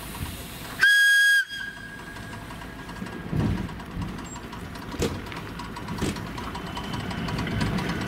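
ET2M electric train giving one short, high whistle blast about a second in. It then starts off from the platform with a few clunks and a running noise that grows as it gathers speed.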